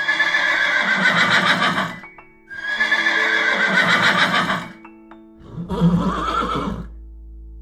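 Horse whinnying twice, each call about two seconds long and falling in pitch, then a shorter, lower call near the end. Background music plays under the calls.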